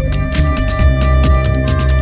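Background music: an electronic track with a fast, steady beat over bass and held notes.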